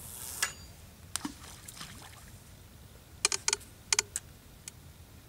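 Feeder rod cast: a brief swish as the rod whips forward and line pays out, followed by sharp clicks of the spinning reel and rod being handled, with two quick clusters of clicks about three and four seconds in.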